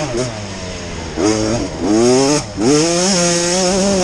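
Small off-road motorcycle engine revving hard in surges, its pitch climbing, then dropping briefly about one and a half and two and a half seconds in before climbing again, with a raspy, buzzing exhaust.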